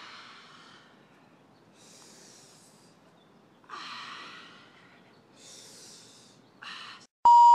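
Heavy breathing: about five loud, hissy breaths a second or two apart. Near the end, a loud steady electronic beep, cut off after under a second.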